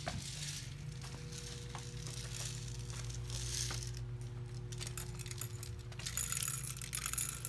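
BBs rattling and clicking as a handful is poured into a BB gun to load it, a scatter of small irregular ticks over a steady low hum.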